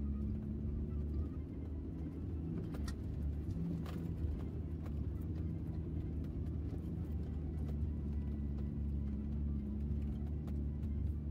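Daihatsu Feroza's four-cylinder engine running as the small 4x4 drives, a steady low drone with scattered light rattles and two sharper knocks about three and four seconds in.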